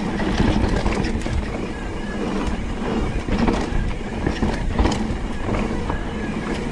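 Mountain bike being ridden down a dirt trail: a steady rush of wind and tyre noise with frequent knocks and rattles from the bike over rough ground.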